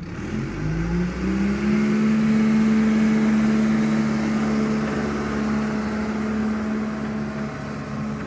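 John Deere 310 backhoe's engine revving up over the first second or so, then held steady at high revs.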